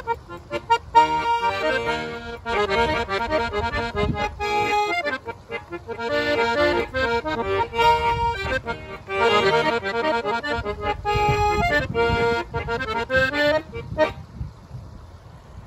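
Solo piano accordion playing an instrumental tune, melody over rhythmic accompaniment, which stops near the end.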